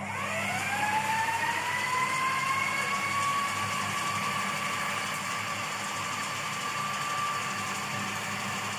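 Electric food processor switched on, its motor whining up in pitch over the first second as it reaches speed, then running steadily while it beats eggs and sugar for a sponge cake batter.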